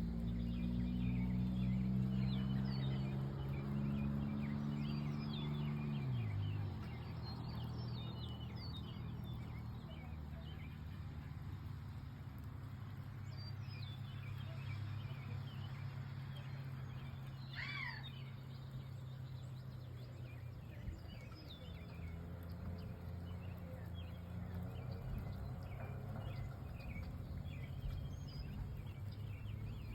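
Outdoor ambience with many small birds chirping and one clearer call in the middle. A steady engine-like drone drops in pitch and fades about six seconds in.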